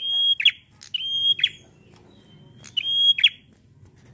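Caged prenjak (a tailorbird) singing loudly: three phrases about a second apart, each a high held whistle ending in a quick downward flick.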